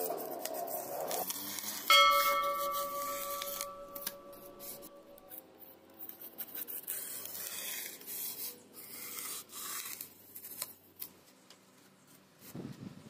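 Utility-knife blade cutting through a polystyrene foam sheet: squeaky, scratchy scraping strokes. A loud ringing tone sets in suddenly about two seconds in and fades away over a few seconds. Near the end comes a brief low rustle.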